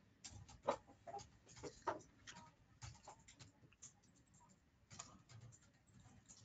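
Near silence broken by a few faint, short clicks and ticks spaced irregularly about a second apart.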